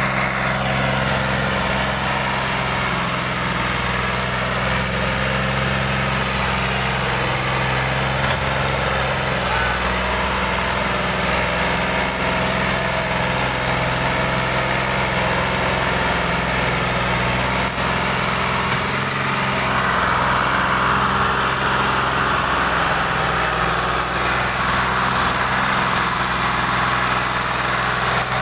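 Farm tractor's diesel engine running steadily as it pulls a heavily overloaded sugarcane trolley, working hard enough that the front wheels lift. The engine note grows a little louder and brighter about two-thirds of the way through.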